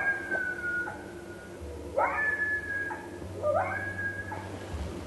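Coyote howling: three calls about a second and a half apart. Each is a quick upward yip that turns into a high held note, sagging slightly before it breaks off. A low steady hum lies underneath.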